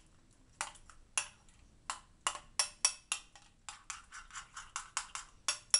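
A metal spoon stirring a kefir marinade in a glass bowl, clinking against the glass in irregular sharp taps. The taps come a few at a time at first, then quicken to three or four a second from about two seconds in.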